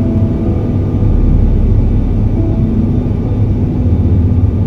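Steady low rumble of a turboprop airliner's engines and airflow, heard inside the passenger cabin in flight.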